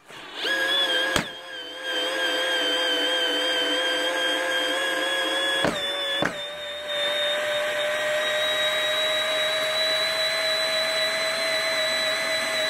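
Counterfeit Bosch GSR 18-2-LI Plus cordless drill-driver running under load, driving a long wood screw into a thick wooden block: a steady whine from the motor and gearbox. There is a click about a second in and two more around six seconds in, after which the whine settles slightly higher in pitch.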